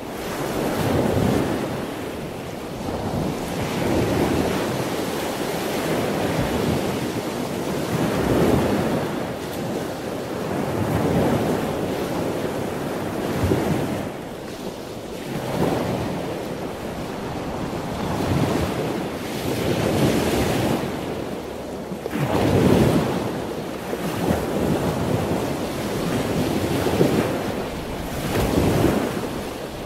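Sea waves washing with wind buffeting the microphone, a steady rushing noise that swells every two to three seconds.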